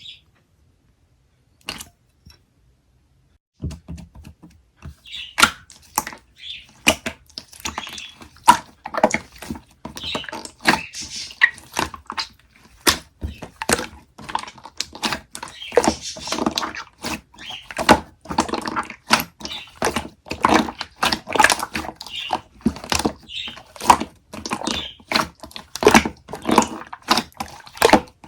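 Close-up handling sounds: a dense, irregular run of sharp clicks and crackles that starts a few seconds in, after a couple of isolated ticks.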